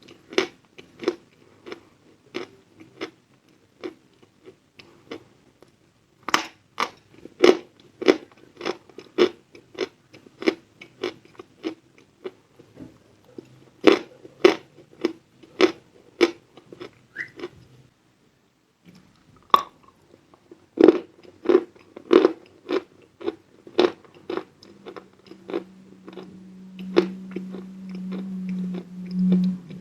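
Lumps of edible chalk being bitten and chewed close to the microphone: a long run of crisp crunches about two a second, with a brief pause a little past halfway. A low steady hum joins the chewing near the end.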